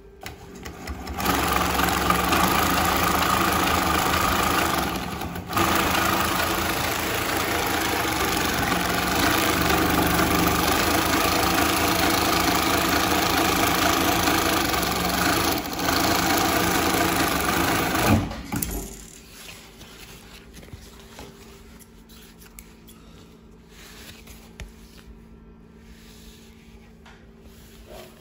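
Montex 525-75-101 long-arm industrial zig-zag sewing machine running at speed, with its roller puller engaged, sewing a three-step zig-zag seam through heavy fabric. It eases off briefly about five seconds in and again around sixteen seconds, then stops about eighteen seconds in, leaving a faint steady hum.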